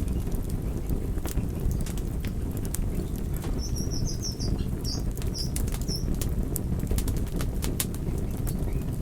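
Wood fire burning, with a steady low rumble of flames and scattered sharp crackles and pops. A brief run of high chirps comes in about halfway through.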